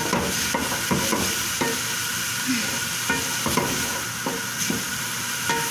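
Food sautéing in a frying pan, with a steady sizzle, while being stirred: a spatula scrapes and knocks against the pan several times.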